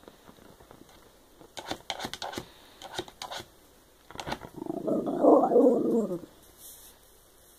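Shiba Inu dog 'talking': one loud, drawn-out grumbling vocalization lasting about two seconds, starting about four and a half seconds in, after a few short clicks.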